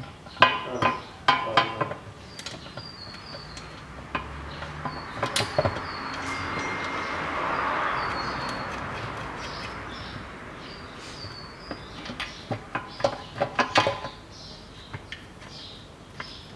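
Metal clinks and taps as the automatic transmission's steel oil pan, on its new gasket, is fitted up against the gearbox: a cluster of clinks near the start and another about two-thirds of the way through, with a hiss swelling and fading in between. Birds chirp faintly throughout.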